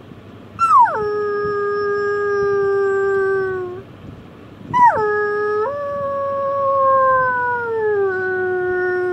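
A person imitating a sad wolf howl through cupped hands. There are two long howls, each opening with a quick slide down from a high note and then held on a slowly falling pitch. The second howl lifts a little about a second in, then sinks steadily lower.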